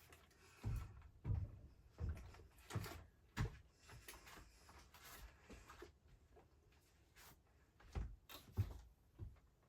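Soft knocks and bumps in a small room, like cupboard doors and things being set down while packing. Five come in the first few seconds and two or three more near the end.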